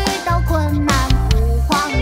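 Opening theme-song music: a sung melody over a steady bass line and drum beats.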